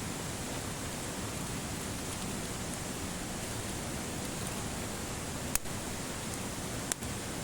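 Wood campfire burning: a steady hiss, with two sharp crackles near the end, a little over a second apart.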